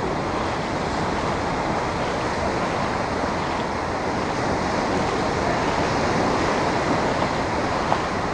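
Small surf waves washing in over a shallow sand flat: a steady rush of water.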